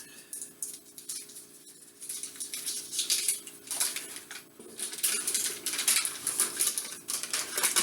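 Irregular crinkling and rustling handling noises, a quick scatter of short crackles that comes and goes.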